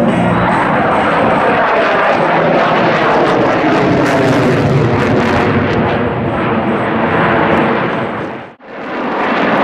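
F-22 Raptor's twin F119 jet engines, a loud continuous roar as the jet flies its power loop overhead. The noise drops out abruptly for a moment near the end, then returns.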